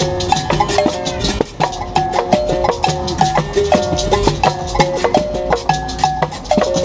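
Live acoustic music of berimbau with hand percussion and shakers, running at a steady rhythm: short pitched notes step between a few pitches over a busy pattern of strikes.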